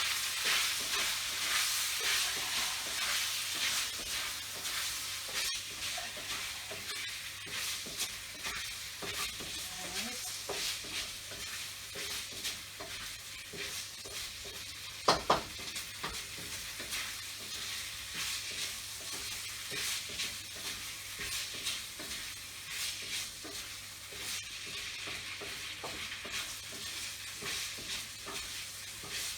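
Food sizzling steadily in a hot pan while being stirred and tossed with a spatula, with frequent small scrapes and clicks. Two sharp knocks sound about halfway through.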